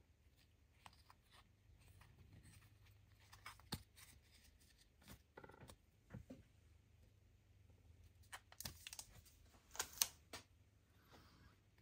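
Faint handling of trading cards: cardboard cards sliding and flicking against each other as they are thumbed through, with a few sharper clicks and taps about two-thirds of the way in.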